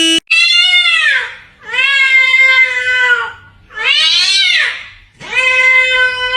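Domestic cat yowling in four long, drawn-out meows, some arching up and down in pitch, others held nearly level; the last runs on past the end. A brief steady tone cuts off just as the first meow begins.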